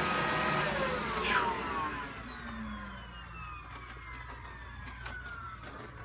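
Vacuum cleaner switched off, its motor winding down: the whine falls steadily in pitch and fades over several seconds.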